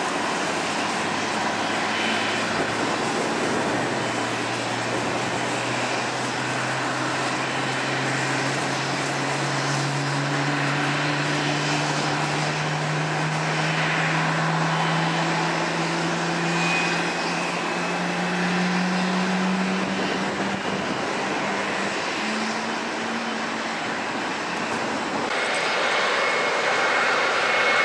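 Jet noise from a Boeing 777-300ER's GE90-115B engines: a steady rush with a whine that climbs slowly in pitch for about fifteen seconds, as during an engine spool-up at pushback. Near the end the sound turns brighter, with a high, steady fan whine at taxi thrust.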